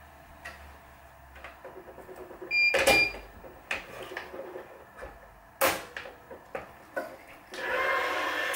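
Wise 2086 electronic tension head on a racquet stringing machine during a double pull on a main string: a short electronic beep about two and a half seconds in, then a clack and a series of sharp clicks from the clamps and frame, and near the end the head's motor runs with a steady hum as it pulls the string to tension.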